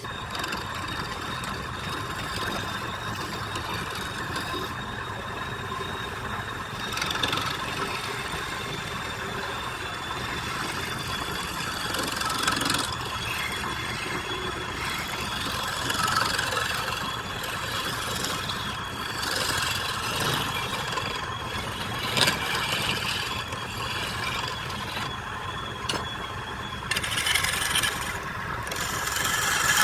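Wood lathe running steadily, with a constant high whine over a low hum and louder bursts of noise now and then.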